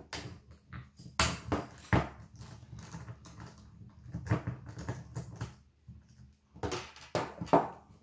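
Irregular clicks and knocks of a nylon gel blaster receiver being worked apart: takedown pins pushed out with a screwdriver, the parts handled and the tool set down on a wooden table. A few louder knocks, with a cluster near the end.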